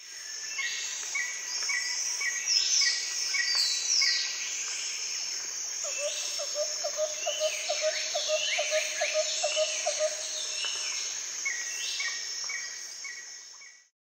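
Several birds chirping and calling over a steady high insect drone. A short chirp repeats about twice a second over the first few seconds, and a lower trill runs through the middle. It fades in at the start and fades out near the end.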